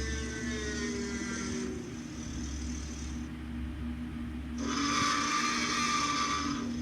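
Tyrannosaurus rex roar sound effects: a roar that falls in pitch and dies away in the first two seconds, then a second, louder roar starting a little past the middle, both over a steady low hum.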